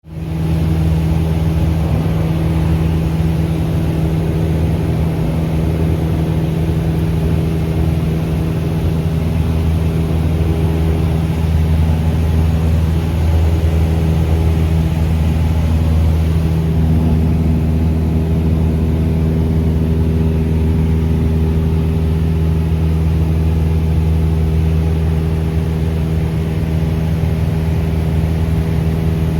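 Cessna 172's piston engine and propeller running with a steady drone that cuts in suddenly at the start.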